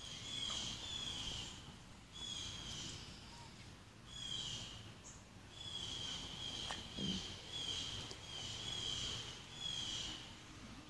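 A small bird chirping in short, quick trilled phrases, repeated about a dozen times, with a single brief low sound about two-thirds of the way through.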